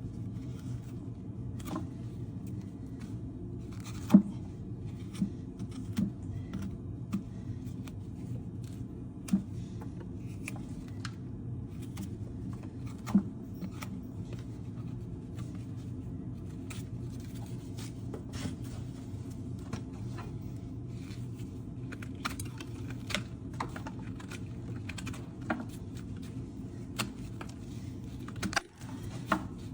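Hoof knife paring a horse's hoof: an irregular run of short cuts and scrapes with a few sharper, louder clicks, over a steady low hum.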